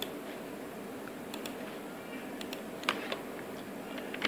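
Computer keyboard keys tapped a few at a time: scattered single and paired clicks over a steady low background hiss.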